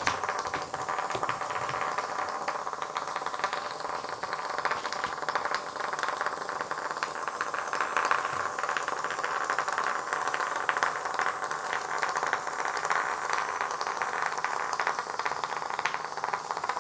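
A small battery-powered interactive cat toy running steadily, its little motor whirring with a continuous fine rattle as it moves over the floor.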